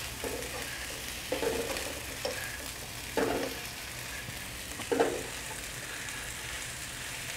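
Sliced chicken sausages sizzling in hot oil in a non-stick wok while being stirred and turned with a spatula, with several short knocks of the spatula against the pan over the steady sizzle.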